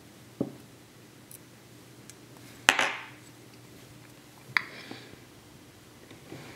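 Machined aluminium pieces of an Element Case Vapor bumper clinking together as they are handled. A soft knock comes first, then a sharp metallic clink with a brief ring a couple of seconds in, the loudest, then a smaller clink about two seconds later.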